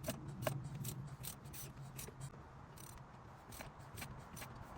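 Ratchet wrench on the crankshaft pulley bolt clicking in short, irregular clicks as the engine is turned over by hand to bring it to top dead centre.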